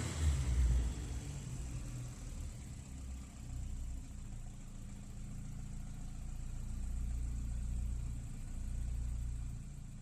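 Audi A3's 20-valve turbocharged four-cylinder engine falling back from a rev in the first second to a steady idle, the idle swelling slightly a few times.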